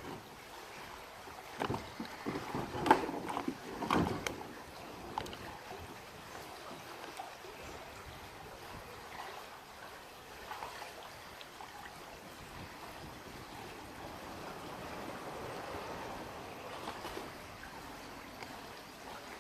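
Water splashing and moving around a kayak, with a few sharp splashes or knocks in the first few seconds, then a steady faint wash of water.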